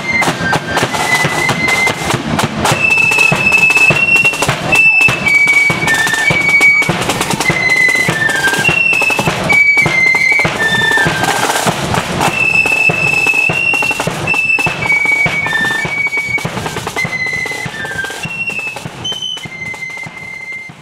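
Marching flute band playing a tune: flutes carry a high melody over regular bass drum and side drum beats. The music grows fainter over the last few seconds.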